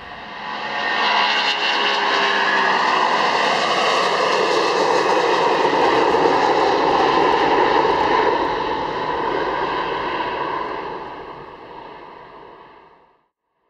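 Jet aircraft engine noise: a loud roar with steady whining tones. It swells up about a second in, holds, then fades out and stops shortly before the end.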